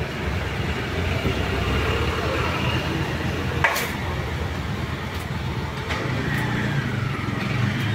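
Steady noise of road traffic, with background voices and one sharp clack a little before halfway through.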